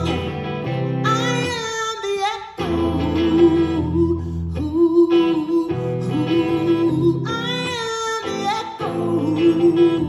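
Live music: a woman singing long held notes over a semi-hollow electric guitar and low sustained bass notes.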